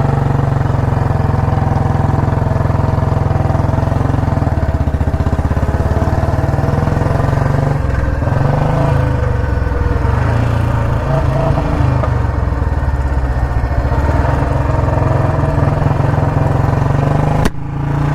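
Royal Enfield Bullet Electra 350's single-cylinder four-stroke engine running in first gear with its low, even thump, the beat wavering a little midway as the rider struggles to get it moving. A short break in the sound comes near the end.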